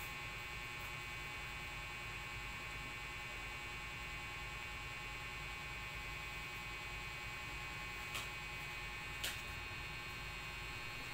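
Steady electrical hum and buzz with several thin high tones held level, broken by two brief faint clicks about a second apart near the end.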